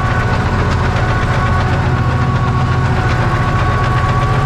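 Ursus C-360 tractor's four-cylinder diesel engine running steadily under load while pulling a plough, with an even, fast low beat.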